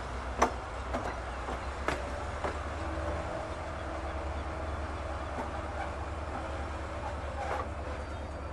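H0-scale model trains running on a model railway layout: a steady low hum under a hiss, with a few sharp clicks in the first two and a half seconds.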